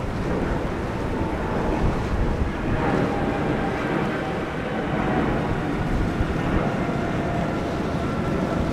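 Quad Mercury 450R outboards on a Cigarette 42 Huntress running at low cruising speed: a steady engine hum over the rush of water along the hull, with wind buffeting the microphone.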